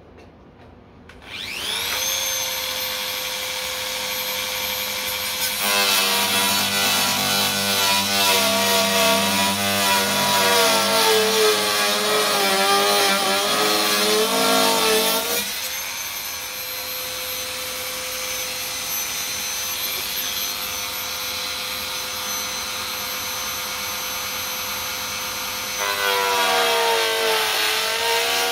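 Dremel rotary tool switched on about a second in, spinning up to a steady high whine. From about 5 to 15 seconds in it cuts into the RV-8's acrylic canopy, its pitch sagging and wavering under the load with a rasping noise. It runs free again at a steady whine, then bites into the canopy once more near the end.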